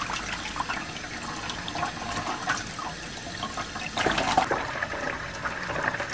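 Tap water running and splashing into a stainless steel basin of water while fish are rinsed by hand under it. The splashing grows louder about four seconds in.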